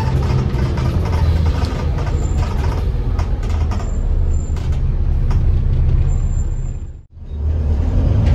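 Inside a moving bus: the diesel engine drones steadily with scattered clicks. The sound drops out suddenly for a moment about seven seconds in, then resumes.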